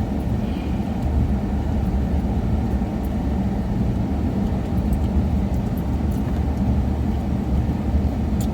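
Steady noise inside a moving car's cabin: a low hum of engine and road with the air conditioner blowing.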